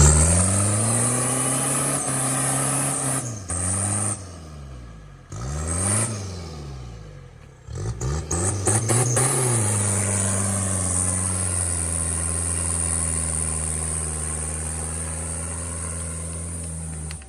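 Off-road vehicle's engine revved hard in several surges, each one rising and then dropping back, and then held at high revs for about seven seconds before cutting off. The vehicle is stuck and is being driven hard to get out of sand.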